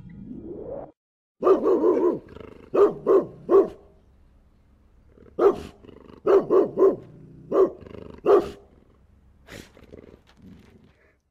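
German Shepherd barking in bursts: a longer opening bark and three sharp barks, a pause, then a quicker run of about six barks, with fainter barks near the end. A short rising sound comes before the first bark.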